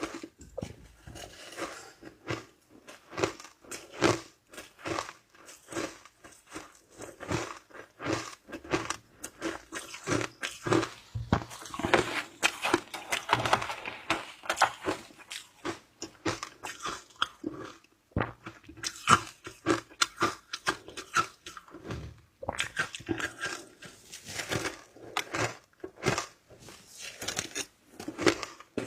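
A person chewing and crunching shaved ice close to the microphone: a steady run of many quick, crunchy bites, busiest in the middle.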